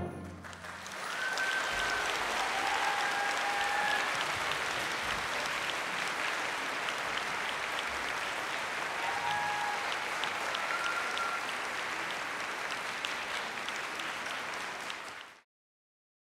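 Concert audience applauding at the end of an orchestral piece, a steady dense clapping that cuts off suddenly near the end.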